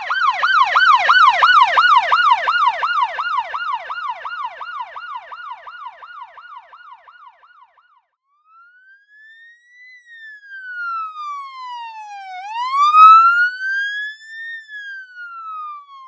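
Two police siren pass-bys. First a fast yelp siren, about three sweeps a second, loud at first and then fading away by about halfway. Then a slow wail siren rising and falling every couple of seconds, loudest about three-quarters of the way through.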